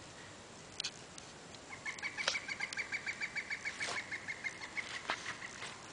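A rapid, even run of high chirps, about seven a second, beginning about two seconds in and lasting over three seconds, with a few light clicks among them.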